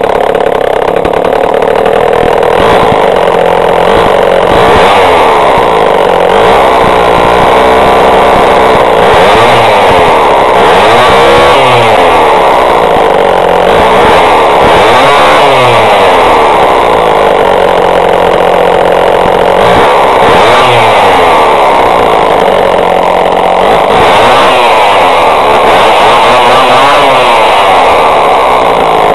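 Homelite S 1050 chainsaw's two-stroke engine running, revved up and down again and again with the pitch rising and falling.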